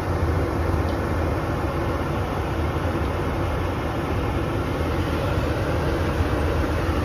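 Gas furnace blower motor running steadily with a low rumble.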